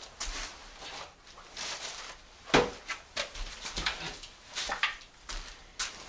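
Irregular rustling, scraping and light knocks of building scraps and materials being handled on the floor, with one sharp knock about two and a half seconds in.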